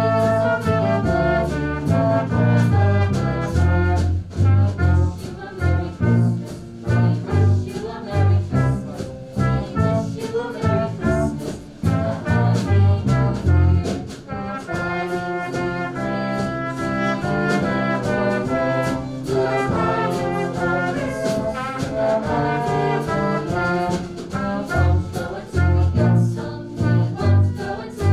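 Live music from a small brass-led ensemble: a quick melody of changing notes over a moving bass line.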